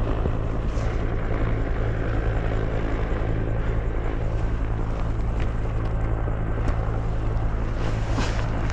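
Helicopter rotor and turbine engine running steadily, a loud continuous drone with a fast rotor pulse.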